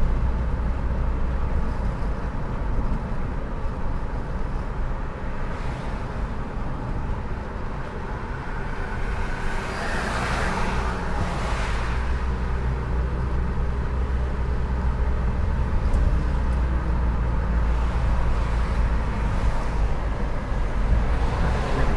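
Car driving along a road: steady low rumble of engine and tyre road noise, swelling into a louder rushing hiss about halfway through that then fades.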